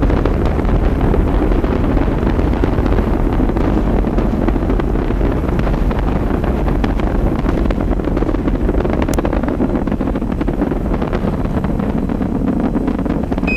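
Saturn V rocket engines thundering during ascent: a loud, steady deep rumble with dense crackle.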